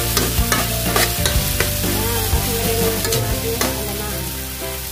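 Food sizzling as it fries in a pan, with a utensil knocking and scraping against the pan a few times as it is stirred.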